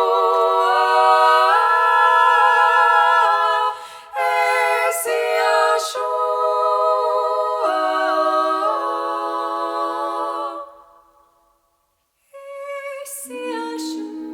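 Female four-voice a cappella group singing held chords in close harmony, the voices moving together in steps. The singing fades out about ten seconds in, then comes back after a second of silence on a low sustained chord.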